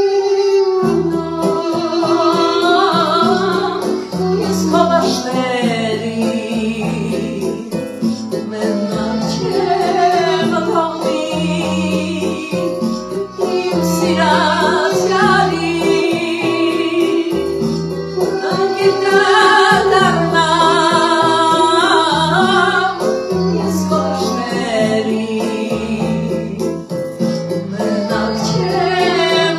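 A woman singing a melody into a microphone over keyboard accompaniment with a steady, repeating bass line.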